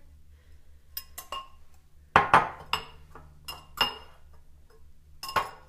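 A metal whisk clinking and scraping against glass bowls as chopped vegetables are tipped and scraped from a small glass bowl into a larger one: a string of separate light clinks, the loudest about two seconds in and again near the end.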